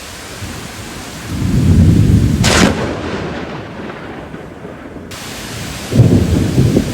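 Thunderstorm with steady rain hissing; a low rumble of thunder builds about a second in and breaks into a sharp crack, the sign of a lightning strike close by. Another low rumble comes near the end.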